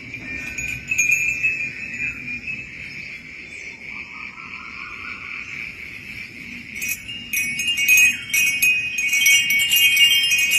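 Metal wind chimes ringing in the breeze, with tones overlapping; the strikes become quicker and louder in the second half.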